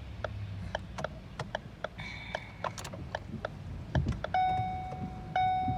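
Interior of a car that won't start: steady clicking about three times a second from the dashboard, a thump about four seconds in, then two long warning chimes from the instrument cluster.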